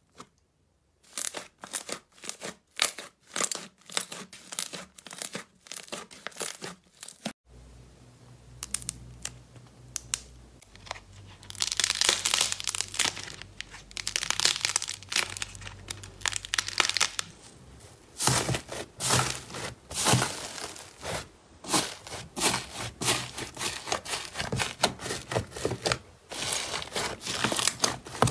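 Slime being poked, stretched and squeezed by hand, making sticky pops and clicks. The clicks come one by one at first; from about twelve seconds in they run together into dense crackling as the slime is torn and kneaded.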